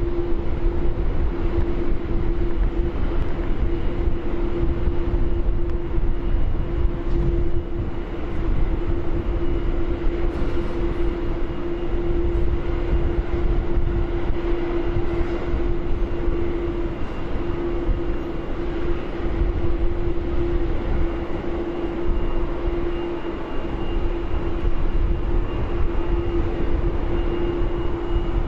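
Steady jet-turbine drone from aircraft on an airport apron: a constant hum with one strong low steady tone and a faint high whine over an even rumble, with no change in pitch.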